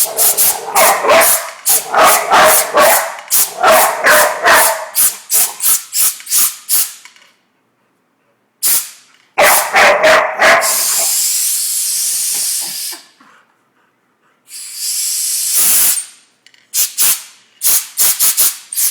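A year-old pit bull barking rapidly while an air gun fires quick puffs of compressed air at him. Longer hissing blasts of air come about ten and fifteen seconds in, then the barking and puffs start again near the end.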